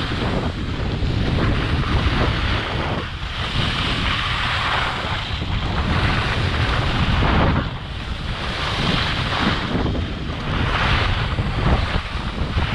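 Wind buffeting the microphone of a camera worn by a downhill skier, with the hiss of skis scraping across the snow that swells and fades with each turn.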